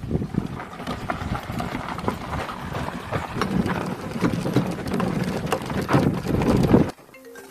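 Hooves clopping irregularly over a rough outdoor background. About seven seconds in it cuts off abruptly to a few clean, bell-like mallet notes.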